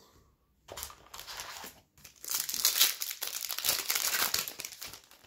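Foil wrapper of a Topps Pro Debut baseball card pack crinkling as it is handled and torn open: a short rustle about a second in, then a louder, denser run of crinkling from about two seconds in.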